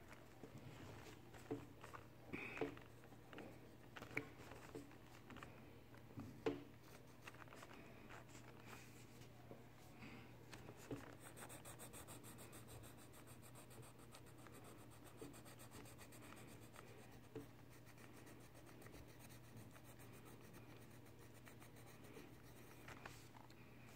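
Faint scratching of a pencil on paper as an eye is sketched and shaded, with quick louder strokes in the first several seconds, then softer, steadier shading strokes.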